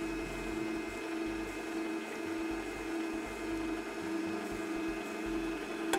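Electric mixer running steadily at high speed, whisking eggs and sugar to beat air into a sponge-cake batter.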